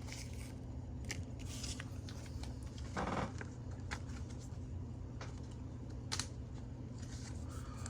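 Light handling of trading cards and their packaging: soft rustles and small clicks here and there, over a steady low electrical hum.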